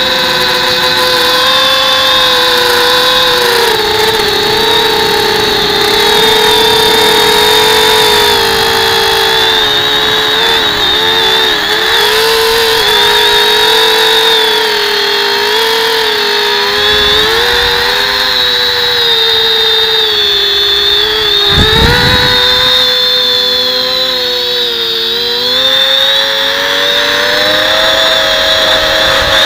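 Electric motors and propellers of a small remote-controlled aircraft, heard from its onboard camera: a steady whine whose pitch wavers up and down. A short low rumble comes about three-quarters of the way through.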